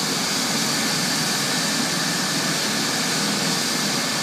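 Hospital helicopter running on the ground, warming up before takeoff: a steady, even rush of engine and rotor noise with a faint high whine held at one pitch.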